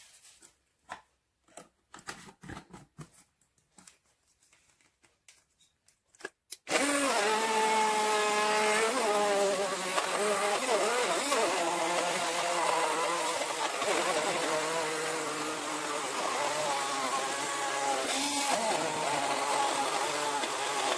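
Cordless, battery-powered BlendLive&Go personal blender running, a few light handling clicks, then its motor starting about a third of the way in and running steadily on a jar heavily loaded with orange and apple pieces in plant milk. Its pitch wavers at first, then settles.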